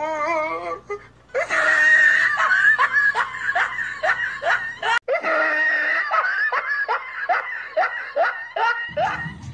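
Women laughing hard: a long run of repeated falling 'ha' bursts, about two a second, breaking off for an instant about halfway through.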